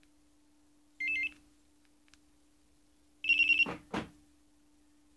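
StarLine A91 alarm key fob beeping as the remote-start command is entered: a short two-tone chirp about a second in, then a longer, louder warbling beep of rapid pulses near the middle. A brief lower sound follows the second beep, over a faint steady hum.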